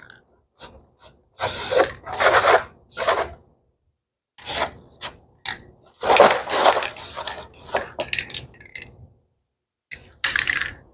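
Aerosol can of spray primer hissing in about six short bursts of spraying, the longest about a second and a half.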